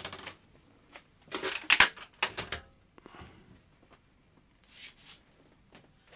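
Hands handling objects on a bench: a short click, then a cluster of quick clatters and rustles about two seconds in, followed by a few faint scrapes.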